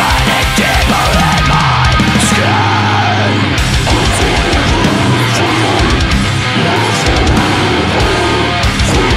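Deathcore song playing loud and dense: electric guitars over a drum kit with rapid kick-drum hits.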